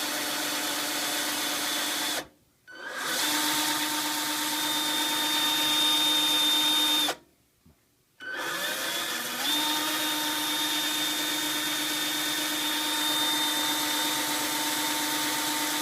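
Old AC electric motor running with a steady hum and whine. It is switched off twice and started again, each time spinning back up to a steady speed.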